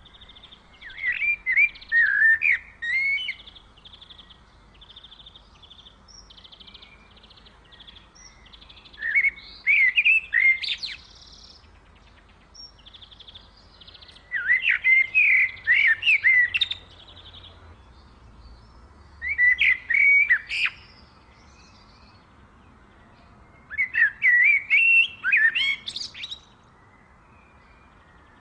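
A songbird singing in five short phrases of quick rising and falling chirps, each about two seconds long and spaced several seconds apart. Softer, fast trilling carries on between the phrases.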